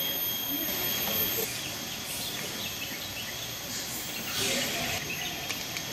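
Tropical forest ambience: a steady high-pitched insect drone, with a hissy swell about two seconds in and another past four seconds, over faint distant chatter of people.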